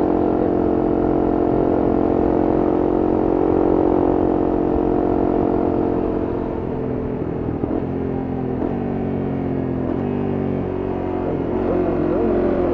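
Honda CRF250M's single-cylinder four-stroke engine running on the move at a steady note. About halfway through, the engine note drops and shifts in several steps.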